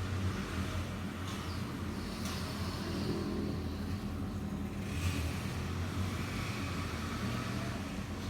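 Rechargeable mini ceiling fan running steadily: a low motor hum under a rush of moving air that swells slightly a couple of times.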